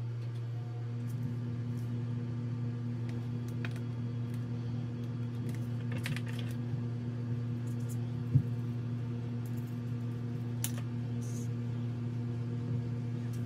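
Light taps and clicks from small pieces and the metal frame of a sand-casting flask being handled, with one sharper knock about eight seconds in, over a steady low hum.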